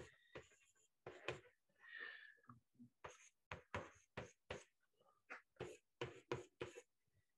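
Faint chalk writing on a blackboard: a string of short, irregular scratches and taps, with a brief squeak about two seconds in.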